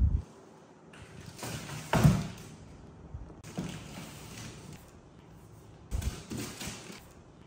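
A large cardboard box being pushed, tipped and scraped across a tiled floor by a small monkey, with a loud thud about two seconds in and more scraping and knocks near the end.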